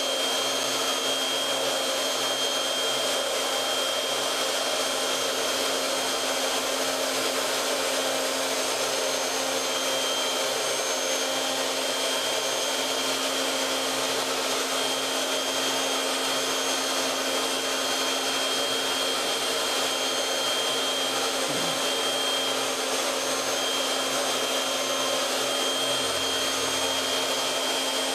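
CNC router spindle running steadily, with a high whine, as its end mill cuts a foam block.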